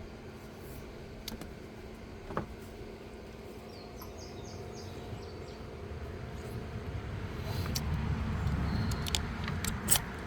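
Outdoor background noise with a low rumble that swells toward the end, a few faint bird chirps about four seconds in, and several sharp clicks near the end.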